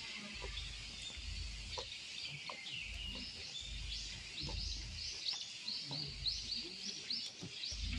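A bird calling a quick run of repeated high notes, about four a second, starting about three seconds in and stopping near the end. Under it are a steady hiss of outdoor background noise and a low rumble.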